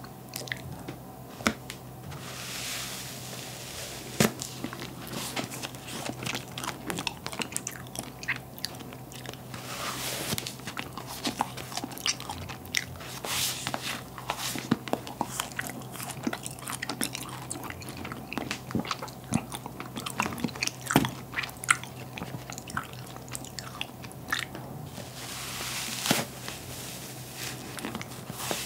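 Close-miked biting and chewing of compressed, sliced cotton candy: irregular crisp clicks and soft crackles as the spun sugar is bitten and pressed, with a few longer hissy stretches, over a faint steady low hum.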